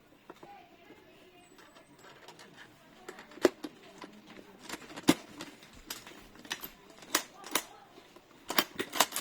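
Irregular sharp clicks and knocks of metal lock hardware being handled and fitted. Two loud knocks come about three and a half and five seconds in, with a quick cluster near the end.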